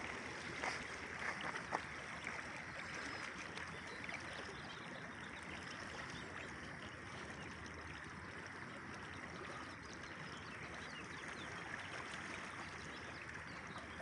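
Shallow creek running steadily over a gravel bed, an even rush of water. A few short taps sound in the first two seconds.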